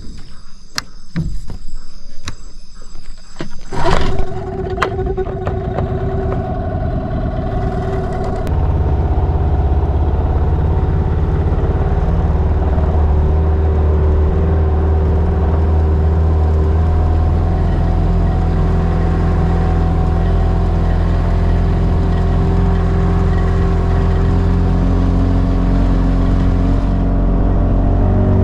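Boat outboard motor: after a few seconds of clatter it starts about four seconds in and runs slowly, then about eight seconds in it is opened up and runs at a steady, loud cruising speed as the aluminium boat moves along.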